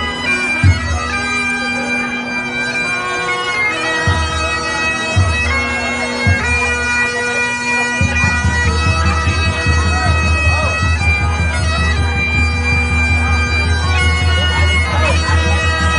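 Bagpipes playing a slow melody over a steady drone, with a few drum beats in the first half and a steady low rumble joining about halfway through.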